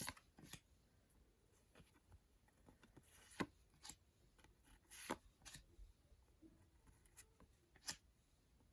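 Faint handling of trading cards and sticker packets: a few scattered light taps and rustles, the clearest about three and a half, five and eight seconds in.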